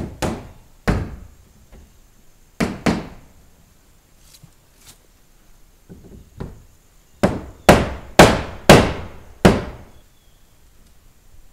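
Hammer blows on wooden trim: a few strikes in the first three seconds, a pause, then a faster run of five or six louder blows near the end.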